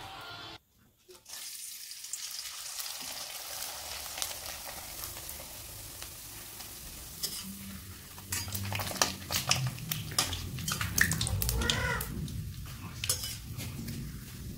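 Rice crackers (kerupuk nasi) deep-frying in hot oil in a stainless steel wok, a steady sizzle that starts after a brief gap near the start. From about halfway, a metal skimmer and spatula scrape and clink against the wok as the crackers are turned.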